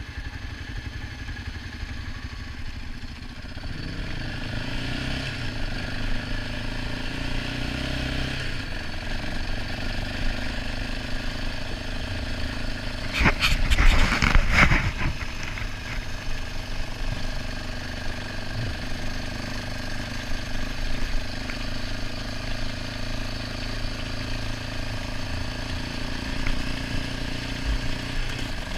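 ATV engine running under way on a gravel trail, its pitch climbing a few seconds in and then holding steady. About halfway through, a loud burst of rushing noise lasts around two seconds.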